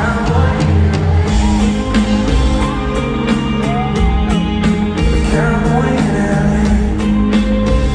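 Live pop-rock band playing in an arena: a male lead voice singing over electric guitar, bass and drums with a steady beat.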